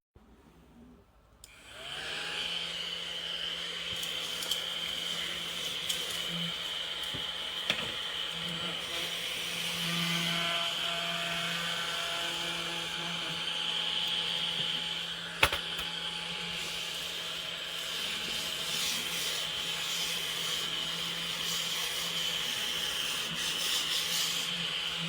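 Cordless mini desktop vacuum cleaner switched on about a second and a half in, its small motor spinning up quickly and then running steadily with a high whine. One sharp click about halfway through.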